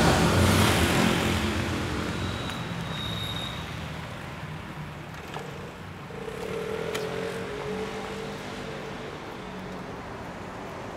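Street traffic: a vehicle passes close, loudest in the first second or so, then fading. Another vehicle's engine hum swells and fades around the middle.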